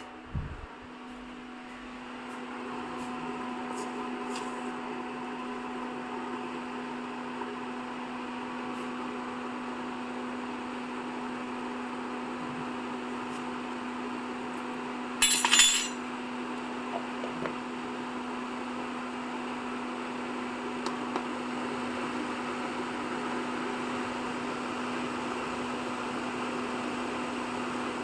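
Steady electrical hum of a running household appliance, with one short loud hiss about fifteen seconds in.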